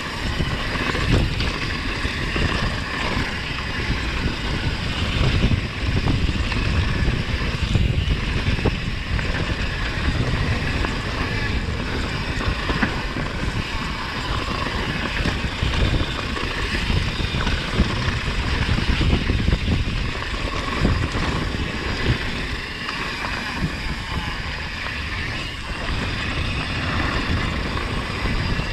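Wind buffeting the microphone of a camera on a mountain bike descending a dirt bike-park trail: a gusty rumble over a steady hiss from the tyres and the ride.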